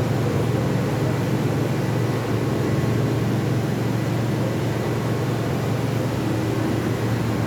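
Absorbent cotton machine running steadily, a continuous low mechanical hum with faint steady tones above it.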